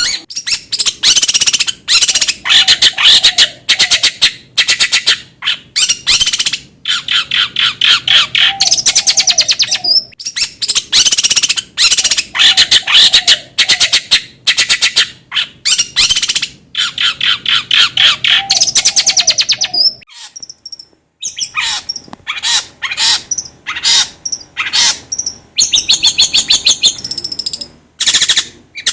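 Long-tailed shrike (cendet) singing: loud, rapid, harsh rattling trills and chattering phrases that follow one another with short gaps, with a brief pause about twenty seconds in.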